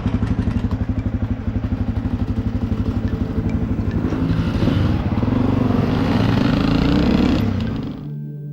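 An off-road vehicle engine idling with an even, pulsing beat, then revving higher and pulling away about halfway through. It cuts off abruptly near the end, giving way to soft sustained music.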